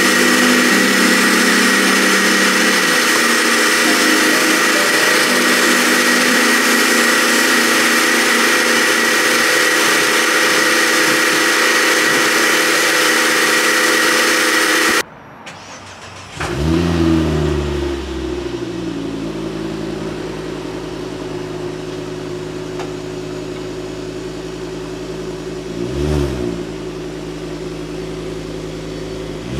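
Pressure washer running, spraying water with a steady hiss and a high whine; about halfway through it stops suddenly. Then the Mk2 Ford Focus ST's 2.5-litre turbocharged five-cylinder engine starts, settles to idle and is revved briefly near the end.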